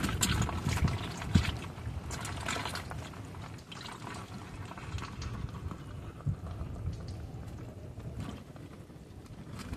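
Wet crackling, clicking and trickling of water-soaked mangrove mud, busiest in the first second or so, over a low rumble of wind on the microphone.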